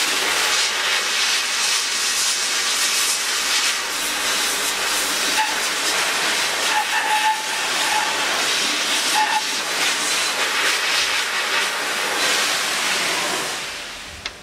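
Sandblasting gun fed from a sandblaster pot, blasting abrasive grit onto a moped's metal frame: a loud, steady hiss of air and grit. It fades away near the end as the blast stops.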